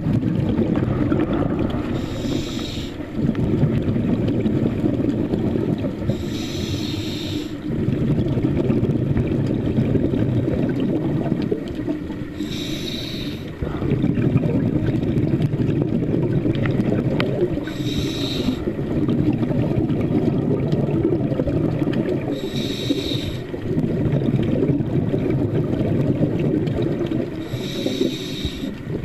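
Scuba diver breathing through a regulator underwater: six short hissing inhalations through the demand valve, about one every five seconds, each followed by the low, rumbling bubble noise of the exhalation.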